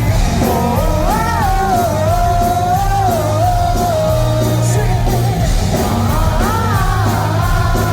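Live rock band performance: a singer holding a melody line over electric guitar, bass and drums, with a crowd singing or shouting along.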